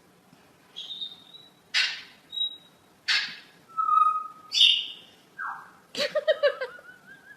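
A bird calling: a varied series of whistles and two harsh squawks, ending in a warbling whistle.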